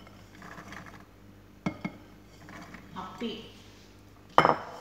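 Hard plastic parts of an electric juicer knocking together: two light clicks about two seconds in, then a loud clack near the end as the feed chute on top of the juicer is handled.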